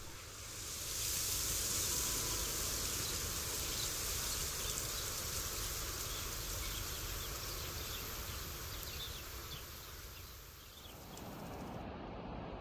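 Steady outdoor ambience: an even, high hiss with no distinct events. About eleven seconds in, it changes to a duller, lower hiss.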